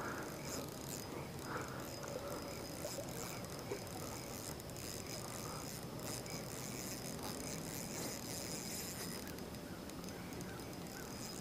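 Quiet lakeside background with insects chirring steadily at a high pitch, and a few faint clicks from a spinning reel being cranked to bring in a fish.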